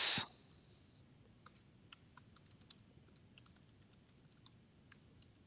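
Light, irregular typing on a computer keyboard: faint keystroke clicks in quick, uneven runs, starting about a second and a half in.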